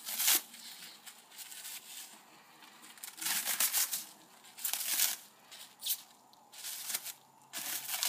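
Plastic shrink wrap being peeled and torn off a steel sword blade, crinkling and crackling in a series of irregular bursts with short pauses between them.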